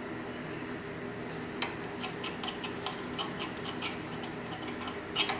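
Steel knife and fork clicking and scraping on a ceramic plate as a steak is sawed into pieces: a quick, irregular run of small clicks, with a louder clink near the end, over a low steady hum.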